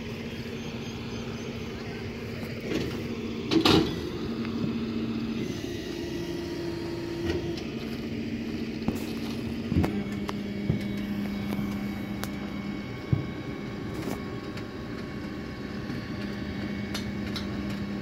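A vehicle engine idling steadily, a low hum with a constant tone, stepping slightly lower in pitch about ten seconds in. A few scattered knocks and crunches come over it, the loudest about four seconds in.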